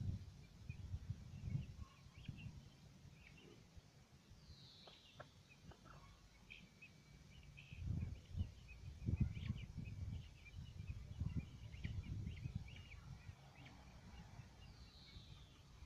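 Young chickens softly cheeping and chattering, a scatter of short faint high calls, with a couple of quick falling chirps and low rumbling bursts, loudest about halfway through.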